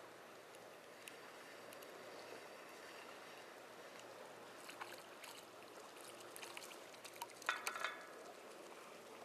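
Faint lapping and trickling of seawater while a spinning reel is cranked to land a hooked fish. Scattered clicks come midway, and a short louder burst of splashing and clicking comes about seven and a half seconds in.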